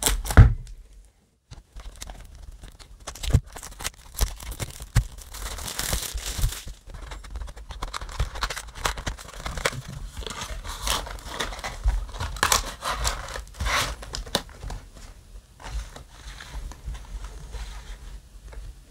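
Plastic shrink wrap being torn off a cardboard booster box and crinkled, with rustles and clicks as the box lid is opened and the foil booster packs inside are handled.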